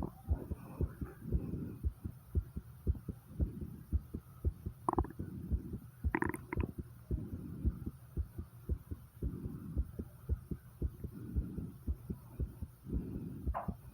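Fast human heartbeat heard through the chest, a steady run of quick low thumps, raced by exertion after 50 squats. Heavy breathing swells in and out behind it about every few seconds.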